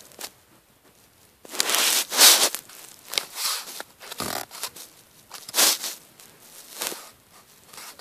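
Fabric rustling and scraping close to the microphone in several short bursts, the loudest about two seconds in.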